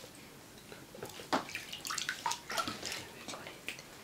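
Bathwater splashing in a plastic baby bathtub as a newborn is washed by hand: a run of short, irregular splashes after a quiet first second.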